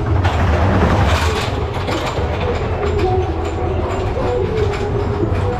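Wooden wild mouse coaster car rolling slowly along the station track: a steady low rumble of its wheels on the rails, with some clattering.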